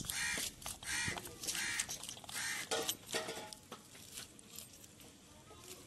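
Knife scraping and prying pomegranate arils off the pith, with the seeds dropping into a steel bowl. The strokes are short, about one a second, and grow weaker after the first three or four seconds.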